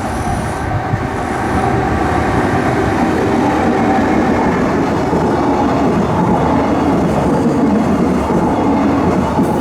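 Train running past at a level crossing, its wheels rumbling and clattering over the rails; it gets louder about two seconds in and stays loud.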